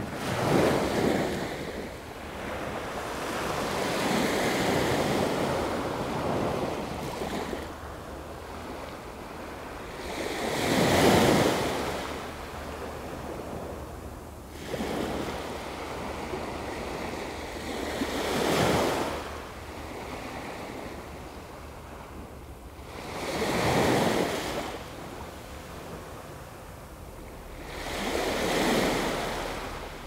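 Gulf of Mexico surf: small waves breaking and washing up the beach, the sound swelling and falling away about six times, several seconds apart.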